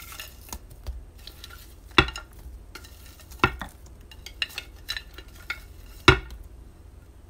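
Cooked, peeled shrimp tipped from a plastic container into a glass bowl of cocktail sauce: soft wet plops and scattered small clicks, with three sharper knocks about 2, 3.5 and 6 seconds in.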